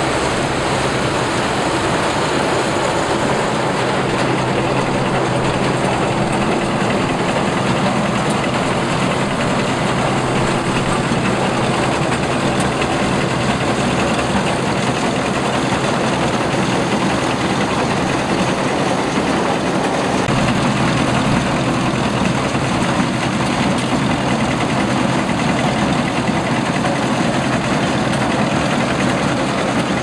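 Zoomlion compact rice combine harvester running steadily as it cuts through standing rice: a loud, even engine and machinery noise.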